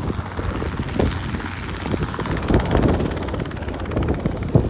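Training helicopter's engine and rotor running steadily, with a fast, even pulsing through the noise.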